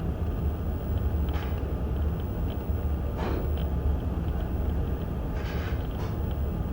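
Common myna giving a few short, scattered calls and clicks, the clearest a little over three seconds in, over a steady low rumble.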